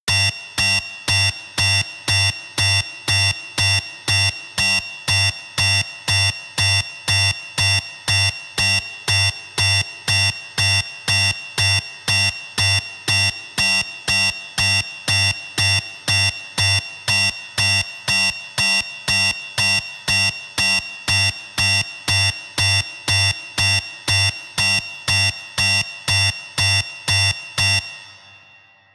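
Synthesized sci-fi 'weapons armed' alarm: a buzzy electronic tone at a steady pitch, pulsing in an even rhythm of somewhat under two beeps a second, each beep starting sharply and dying away quickly. It fades out near the end.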